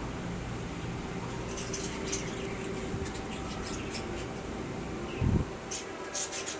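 A bird making short, high chirps in two brief clusters against a steady low hum, with one dull thump about five seconds in.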